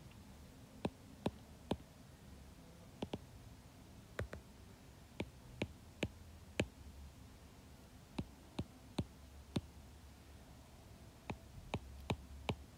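Stylus tip tapping on an iPad's glass screen during handwriting: short, sharp clicks in loose groups of two to four, with pauses between, over a faint low hum.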